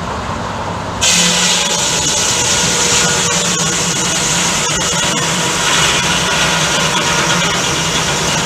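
Old-fashioned sawmill running with steady mechanical noise. About a second in it grows louder and brighter, with a strong high hiss added.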